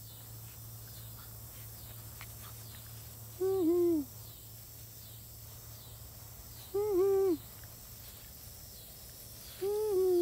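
A woman humming "mm-hmm" with closed lips three times, a few seconds apart, each a short low tone that dips at the end. A faint high chirp repeats steadily behind.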